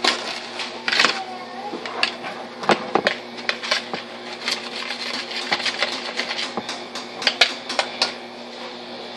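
Irregular clicks and knocks of a plastic pitcher being handled while sugar and Kool-Aid powder are mixed inside it, over a steady low hum.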